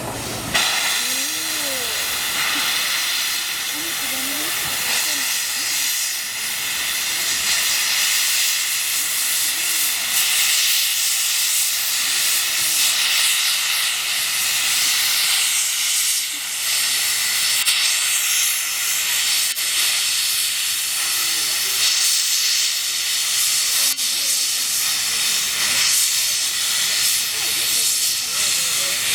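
JNR Class C62 steam locomotive C62 2 hissing steam steadily, an even high hiss with no exhaust beat or rhythm.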